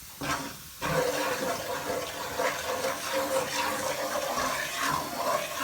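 Ground spices (chilli, coriander, garam masala and turmeric) frying in hot coconut oil, sizzling while a spoon stirs and scrapes them around the pan. The sizzle grows louder about a second in.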